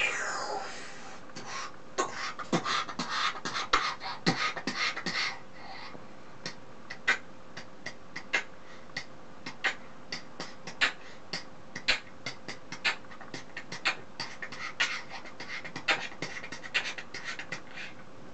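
Beatboxing: a man's mouth making sharp pops and clicks with breathy hiss sounds, dense and busy for the first five seconds, then sparser single clicks at an uneven pace.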